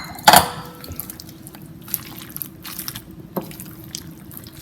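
Thick pancake batter with shrimp and vegetables being stirred in a bowl: wet, sticky squelching with scattered light clicks. A loud wet plop just after the start, and a sharper knock about three and a half seconds in.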